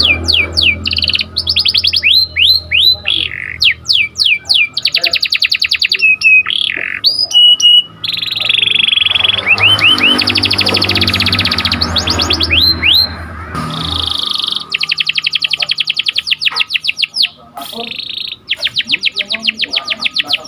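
Domestic canary singing loudly in rapid rolling trills of fast-repeated notes mixed with upward-sweeping chirps, switching to a new phrase every second or two. A low steady hum runs underneath and stops about two-thirds of the way through.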